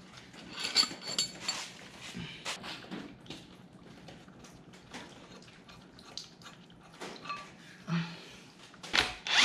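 Scattered metallic clinks and light knocks of hand tools and parts on a partly dismantled engine, with a louder clatter near the end.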